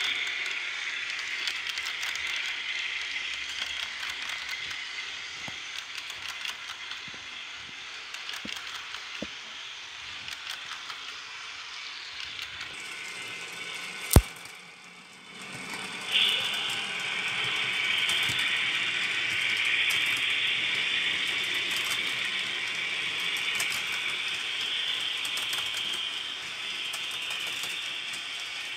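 HO scale model trains running: a steady high whir from the locomotive motors and gearing, with light clicks of the wheels on the track. About halfway through there is a single sharp click, then a short quieter spell before the whir comes back suddenly.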